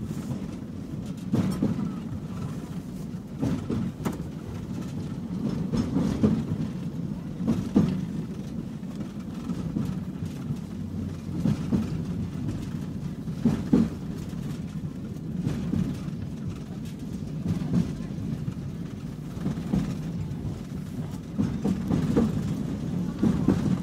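Interior of a moving tram: a steady low rumble of the car running on its rails, with irregular clacks and knocks from the wheels and track every couple of seconds.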